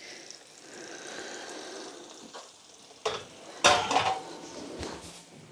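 Hot pan juices sizzling softly on a metal baking tray of chicken, then the tray clattering and clanking as it is handled into the oven, the loudest knock about three and a half seconds in.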